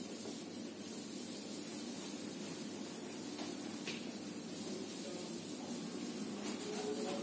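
Whiteboard duster rubbing back and forth across a whiteboard, a steady soft hiss.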